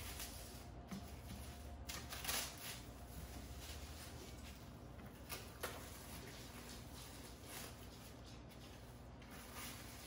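Plastic cling wrap crinkling and rustling as it is peeled off a chilled log of rolled puff pastry. It comes as scattered soft crackles, with a louder one about two seconds in and another about halfway through.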